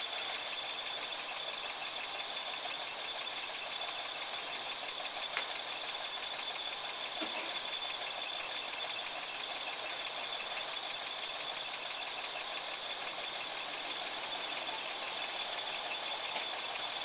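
Four-wheel-drive engine running steadily at idle with a rapid knocking clatter.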